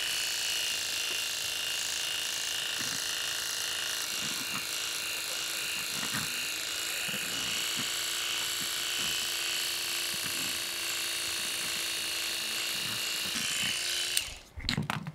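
Electric pet clippers running with a steady buzz while shaving off a Persian cat's matted coat. The buzz cuts off abruptly near the end, with a couple of sharp clicks.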